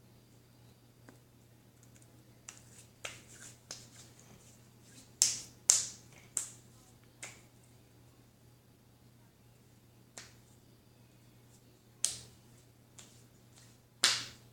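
Slime being squeezed and worked by hand, giving a series of sharp, irregular pops and clicks, the loudest pair about five and six seconds in.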